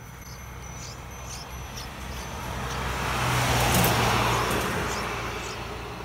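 A road vehicle driving past: a rushing noise that swells to a peak about four seconds in and then fades, over a steady low hum. Short high cheeps come several times, typical of a bulbul chick begging for food.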